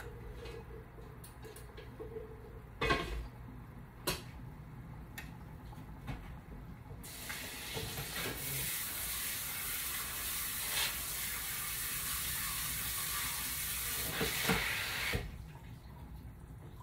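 A couple of sharp knocks, then a kitchen tap running hard for about eight seconds from about seven seconds in, before it is shut off abruptly.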